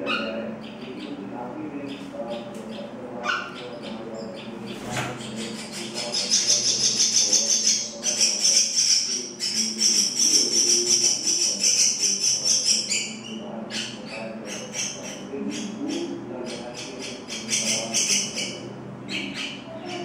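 Common myna nestlings begging: rapid, high-pitched chirping in short bursts that swells into a loud, continuous chorus for several seconds in the middle, as an adult myna feeds them, then breaks up into bursts again.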